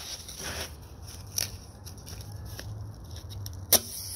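Strike-on firecrackers burning with a steady hiss, a small pop a little over a second in and a louder sharp crack near the end.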